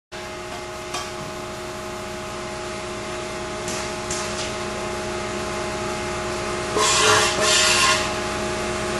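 Hybrid CNC tube bender running: a steady machine hum with several held tones. There is a sharp click about a second in, and a louder rough, noisy burst lasting about a second near the end.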